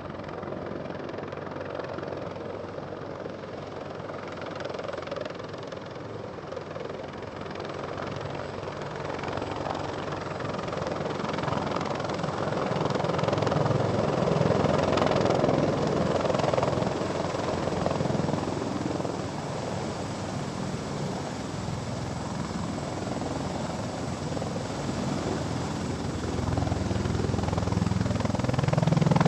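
Helicopter engine and rotor noise running steadily, growing louder about halfway through and again near the end.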